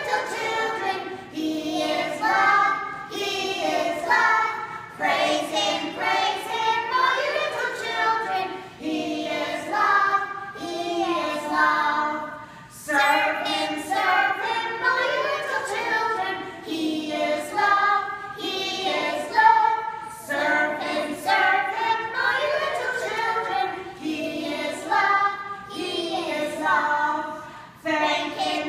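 A small group of young children singing a song together, unaccompanied.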